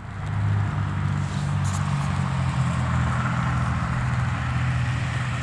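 A motor vehicle engine idling, a steady low hum with a faint hiss over it.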